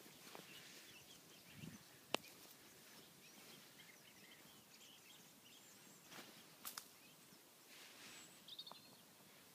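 Near silence: faint outdoor background with a few soft, distant bird chirps and a couple of isolated sharp clicks.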